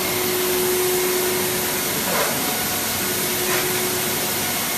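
Digital flatbed cutting machine running: a steady whooshing hiss like a vacuum blower, with a steady hum under it and two short faint swishes about halfway through.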